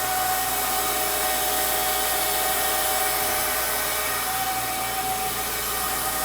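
Steady whine over a constant hiss from a car wash's Magelis control system, a noise the owner finds strange though others have told him it sounds fine.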